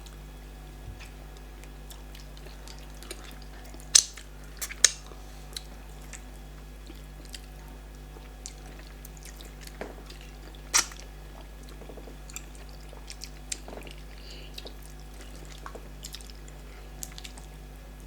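Close-up eating sounds: chewing and wet mouth clicks from people eating fufu with soup, with a few louder sharp clicks scattered through, over a low steady hum.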